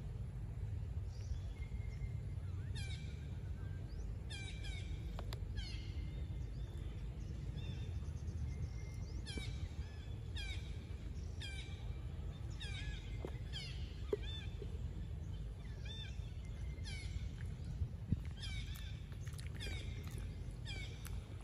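Repeated short, high chirping animal calls, each falling in pitch, coming in small groups every second or two over a steady low rumble.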